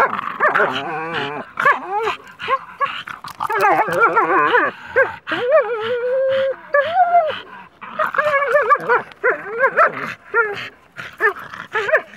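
A Staffordshire bull terrier puppy and a German shepherd vocalizing while tugging on a rubber ring toy: a continual run of short, pitched play growls and whines, with one longer, held whine about six seconds in.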